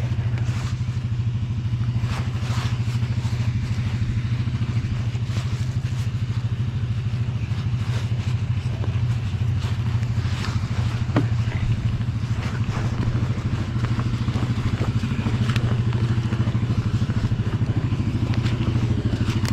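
ATV engine idling steadily, with a few light clicks and clatter over it.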